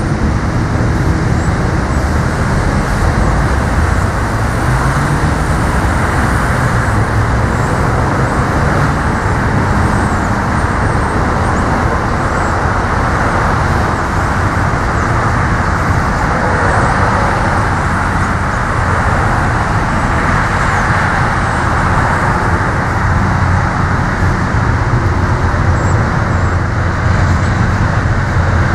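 Amtrak GE Genesis diesel locomotive accelerating out of a station with a passenger train, its engine working hard under load with a steady heavy rumble. The engine note rises a few seconds in.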